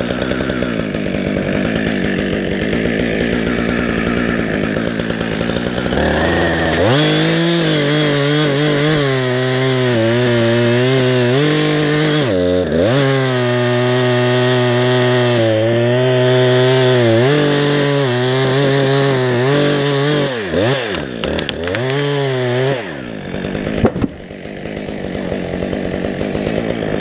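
Chainsaw idling, then revved to full throttle about six seconds in and held high with two brief dips, as it cuts through white pine. Several quick rev-ups and drops follow, then a sharp knock, and the saw falls back to idle.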